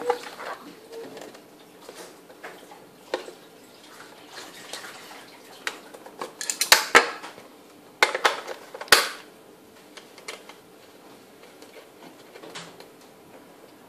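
Small hard objects handled and set down on a glass tabletop: scattered clicks and clinks, with the loudest run of knocks from about 6 to 9 seconds in.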